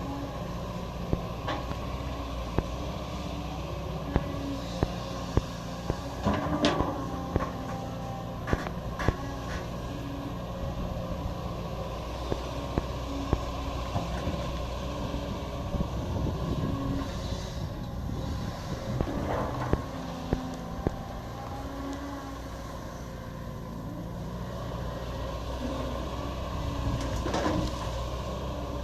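Caterpillar 320D excavator's diesel engine running steadily, with sharp knocks scattered through, most of them in the first two-thirds.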